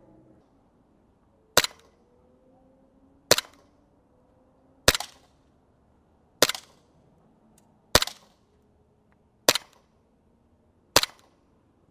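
SIG AIR ProForce M17 gas blowback airsoft pistol running on green gas, fired seven single shots about one every second and a half, each a sharp pop with the slide cycling.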